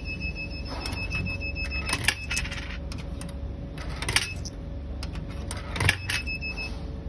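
Euro coins fed one at a time into a small vending machine's coin acceptor, each dropping through with a sharp metallic clink, about every two seconds. A faint high steady whine from the machine lies under it.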